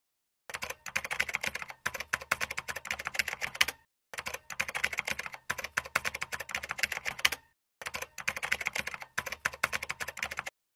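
Typing sound effect: fast key clicks in three runs of about three seconds each, with short pauses between.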